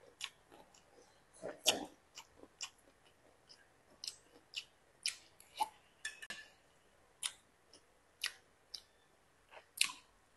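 Close-up chewing of a mouthful of crisp Chinese kale (gai lan) and beef: irregular crunches and wet mouth clicks, with the loudest crunch about two seconds in.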